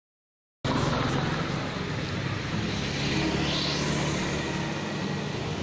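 Street traffic noise with a motor vehicle engine running steadily, heard from a moving vehicle. It cuts in abruptly about half a second in, after silence.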